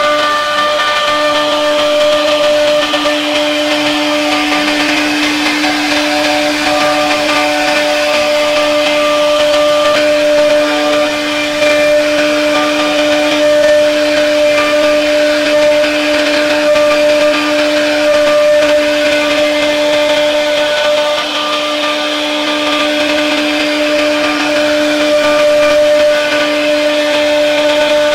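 CNC router spindle running steadily with a high, even whine as its bit carves patterns into a wooden door panel.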